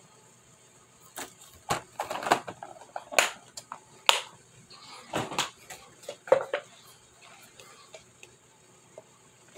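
Eating and handling noises: a dozen or so irregular short clicks and crackles as a chocolate chunk cookie is eaten and a plastic clamshell and plastic drink cup are handled, mostly between about one and seven seconds in, quieter near the end.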